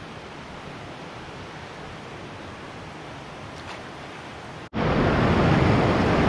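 Rushing river current over rocks, a steady hiss of moving water. About two-thirds of the way through it cuts out for an instant and comes back much louder and fuller: close rapids, with some wind on the microphone.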